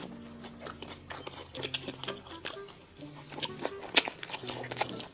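Close-miked chewing and crunching of mala xiang guo, with bites and crunches coming every fraction of a second and one sharp crunch about four seconds in, over soft background music with slow held notes.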